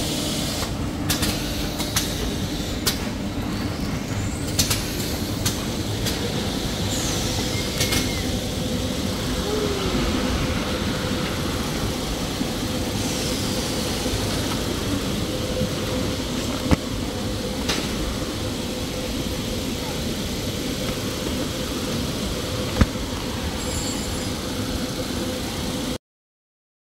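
Maxi roll tissue production line machinery running: a steady noisy hum with a held tone and scattered clicks and knocks. The sound cuts off suddenly near the end.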